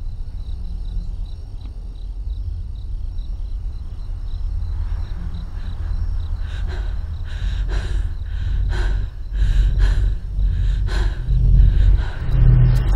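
Horror-film soundtrack: a low rumbling drone with faint crickets chirping, then from about five seconds in quick, ragged breaths, about two a second, growing louder.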